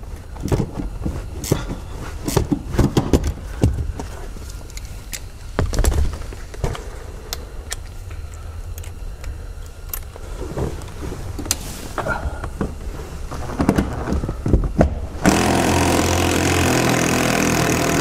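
Clicks and knocks of a hand ratchet working on a seat-mounting bolt. A little after fifteen seconds, a small cordless power driver runs steadily for about three seconds, spinning the bolt out.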